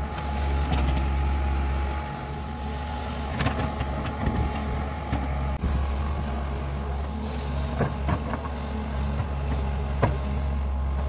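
Tata Hitachi hydraulic excavator's diesel engine running steadily under working load, with a faint steady high tone over the engine drone. Now and then rock and soil knock against the bucket as it swings, dumps and digs, the sharpest knock about ten seconds in.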